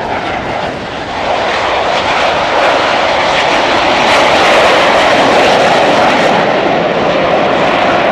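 Jet noise from a formation of Aermacchi MB-339 jet trainers with Rolls-Royce Viper turbojets taking off. It is a loud, steady rushing roar that swells about a second in and holds.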